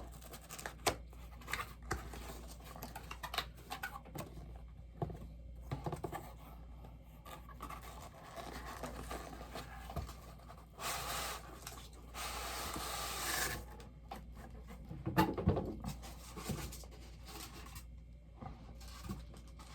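Packaging being handled while a bobblehead is unboxed: scattered taps, clicks and scrapes, with two longer stretches of rustling or tearing a little past halfway through.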